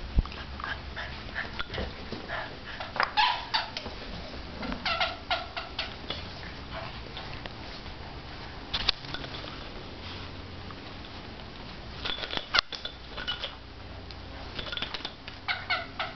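Two Boston terriers playing tug-of-war over a plush toy, making short dog vocal sounds in scattered bursts every couple of seconds, with one sharp knock about two-thirds of the way through.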